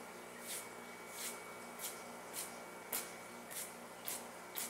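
Rhythmic swishing strokes, about two a second, over a faint steady hum.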